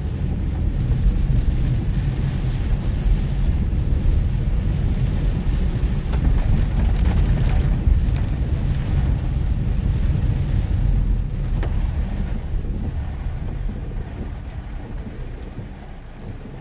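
Mitsubishi Pajero Mini driving on a forest road in heavy rain: a steady low rumble of engine and tyres with a hiss of rain and water over it and a couple of knocks about halfway through. The rumble eases off near the end.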